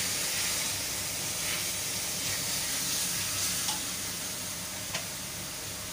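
Onion, ginger-garlic, tomato and ground spice masala sizzling steadily in oil in an iron kadhai as it is fried and stirred with a spatula. A couple of light clicks come in the second half.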